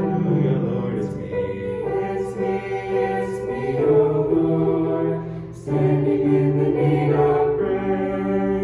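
A choir singing a slow hymn in long, held chords.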